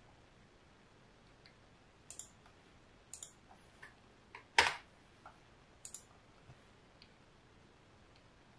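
Computer mouse clicks, several in quick pairs, with one louder, fuller knock about halfway through.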